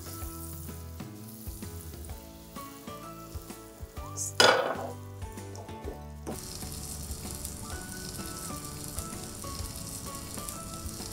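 Butter sizzling as it melts in a hot Atomy Medi-cook ceramic-coated frying pan swirled over a gas burner. A brief sharp burst of noise comes about four seconds in. The sizzle grows louder from about six seconds on.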